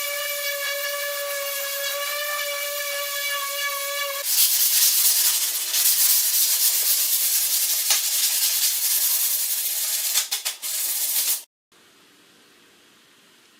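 A power tool running with a steady whine, then a loud hiss as it works the material, which cuts off abruptly near the end and leaves faint room tone.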